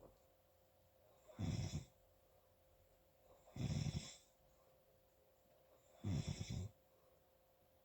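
Loud snoring: three snores about two and a half seconds apart, each lasting about half a second, with quiet breathing between them.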